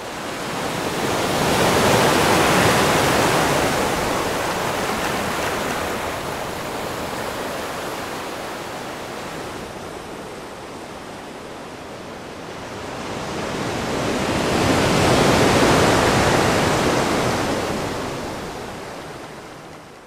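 Ocean surf: a steady rush of breaking waves that swells twice, once a couple of seconds in and again near the three-quarter mark, then fades away at the end.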